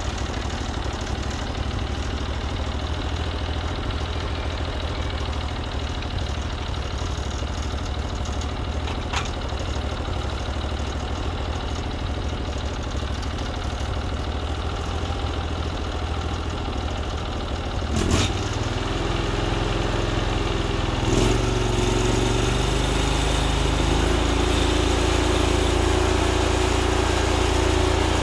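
Norwood MX34 portable bandsaw mill's engine running steadily. About eighteen seconds in there is a sharp knock, and the engine note shifts to a steadier, slightly louder hum, with another knock a few seconds later.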